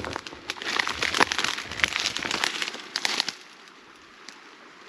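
Dry reeds and grass crackling and rustling, dense and close for about three seconds, then stopping and leaving only a few faint ticks.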